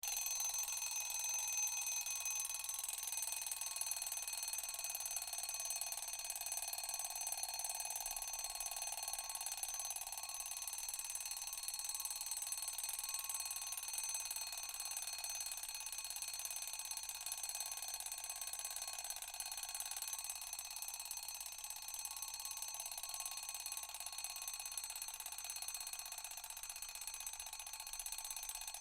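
Mechanical alarm bell ringing in one steady, unbroken ring, with many high tones.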